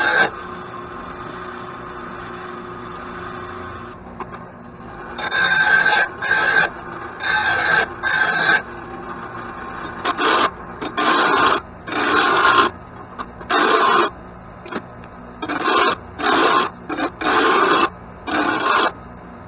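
A lawn mower blade being sharpened by hand with a file: repeated rasping strokes of metal on metal, each under a second, in short runs with pauses between.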